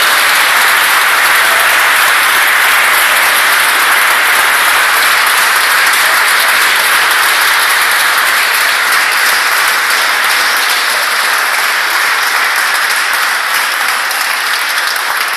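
A crowd of guests applauding with sustained clapping, easing off slightly near the end.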